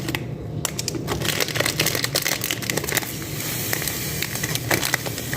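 Dense, irregular crackling and crinkling of a breadcrumb package being handled as breadcrumbs are poured out, over a steady low hum.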